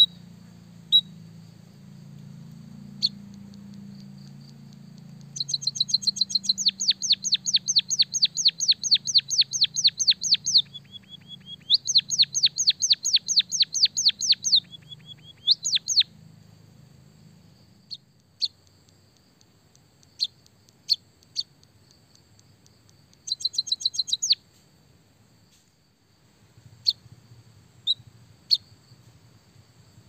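White-headed munia (emprit kaji) chirping. Single sharp high chirps give way to two long trills of fast repeated notes, about seven a second, in the first half, then a short trill and scattered chirps in the second half.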